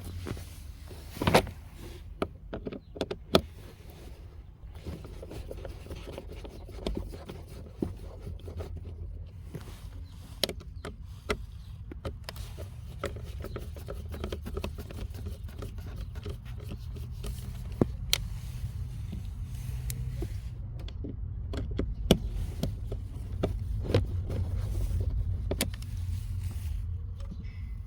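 Irregular clicks and knocks of a socket tool and loose bolts as the 5.5 mm bolts holding a car's blower fan housing are undone, over a low steady hum.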